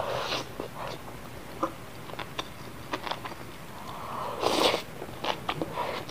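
A person eating spicy ramyun noodles close to the microphone: a slurp at the start and a longer, louder slurp about four and a half seconds in, with small wet clicks of chewing in between.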